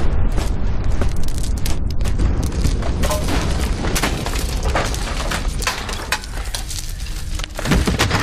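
A deep explosion rumble slowly dying away, scattered with many sharp cracks and clatters like falling debris, and a louder knock near the end.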